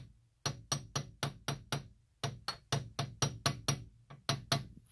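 Quick runs of sharp metallic taps or clicks, about four a second in runs of six or seven with short pauses: hand-tool work on a newly fitted wheel hub and bearing assembly.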